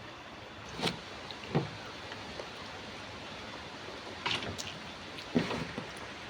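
Eating sounds during a mukbang meal of nasi padang: four or so short, sharp mouth and handling noises over a steady background hiss.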